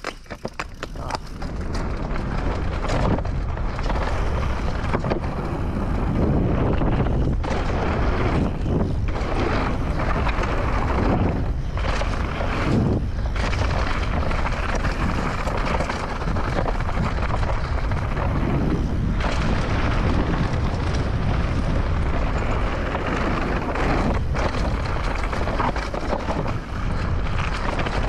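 Mountain bike riding fast down a dirt and gravel trail: wind buffeting the action camera's microphone, tyres rolling over dirt and stones, and short knocks and rattles as the bike goes over bumps. The noise builds over the first two seconds as the bike picks up speed.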